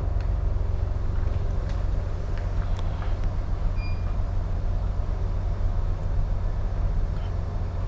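Steady low rumble aboard a container ship under way, with a brief electronic beep about four seconds in.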